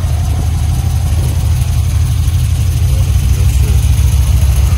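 Box-body Chevrolet Caprice engine idling steadily, a loud low exhaust note.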